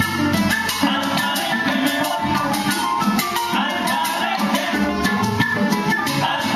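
A Cuban son group playing: several instruments over a steady percussion rhythm.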